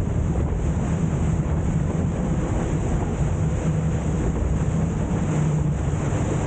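Wind buffeting the microphone on a moving boat, over the steady hum of the boat's engine and the rush of water along the hull.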